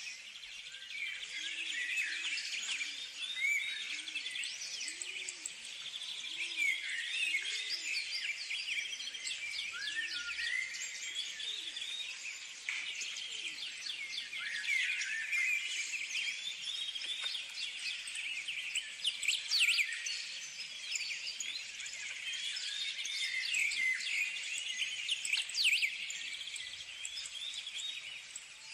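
Many small birds chirping and twittering together in a dense, unbroken chorus of short high calls and quick pitch sweeps.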